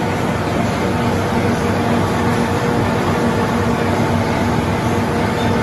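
Four-colour stack-type flexo printing machine running, printing aluminium foil: a steady, even machine noise with a few steady tones in it.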